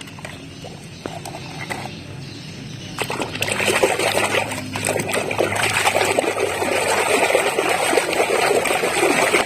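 Water splashing and trickling while a muddy plastic toy vehicle is washed. There are a few light knocks at first, and the rush of water starts about three seconds in.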